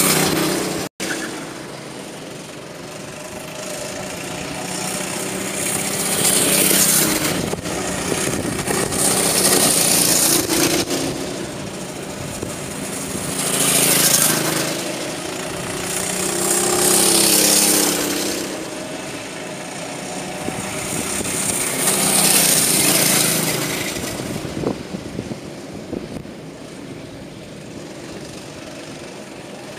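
Small go-kart engines racing past one after another, the sound swelling and fading about five times as karts pass and pull away, with engine pitch sliding up and down through the corner. The sound cuts out for an instant about a second in.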